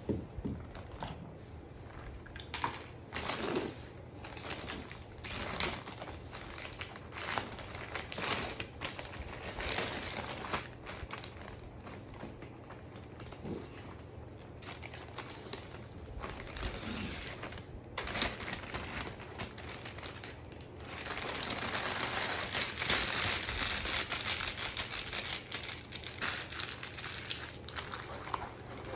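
Clear plastic packaging bags crinkling and rustling as they are handled. The crinkling is loudest and most continuous for several seconds near the end.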